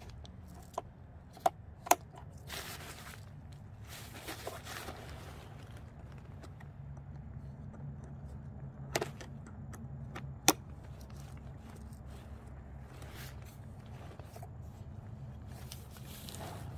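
Nylon fabric of a deflated inflatable yard decoration rustling and scraping in short stretches as it is handled and unfolded, with a few sharp clicks, two close together about two seconds in and two more around nine and ten seconds, over a steady low hum.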